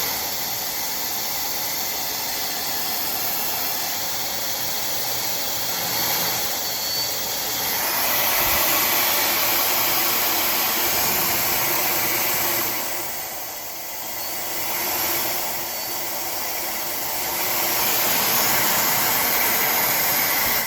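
Tymo Air Hype hair dryer blowing steadily, a rushing hiss with a couple of brief dips in loudness. It shuts off suddenly at the end.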